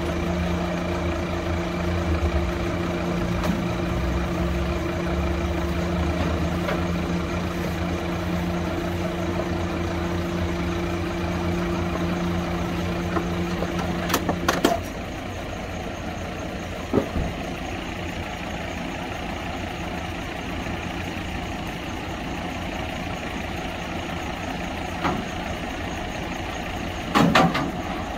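Isuzu tilt-tray tow truck's diesel engine running with its winch drawing a crashed hatchback up the tray. There is a steady hum that cuts off about halfway with a click. The engine then idles, with sharp metallic clanks once and then twice near the end.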